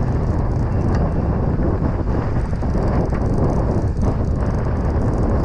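Wind buffeting an action camera's microphone over open sea: a steady low rumble with a hiss above it.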